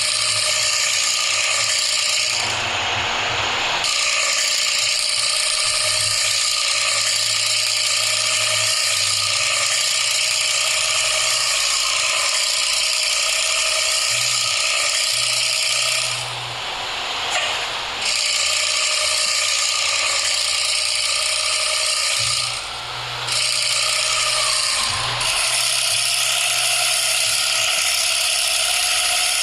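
Hino diesel truck engine running through a bobokan (gutted, straight-through) muffler, giving a loud, rapid, rattling snore, the 'ngorok' exhaust note. It holds steady, with two brief dips in level.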